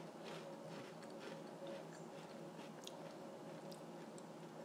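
A person chewing a crisp, thin sandwich cookie (a salted caramel Oreo Thin) with the mouth closed: faint, irregular little crunches.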